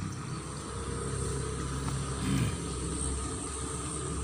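A motor running steadily with a low hum, and a thin high steady whine above it; a short gliding sound comes about halfway through.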